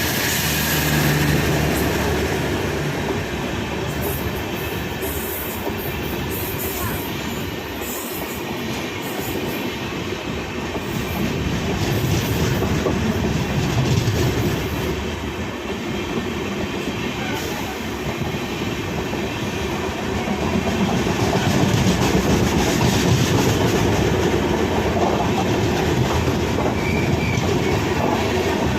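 Express train wheels running over the rails: a continuous rumble and rattle of the track, swelling a little louder in the last third.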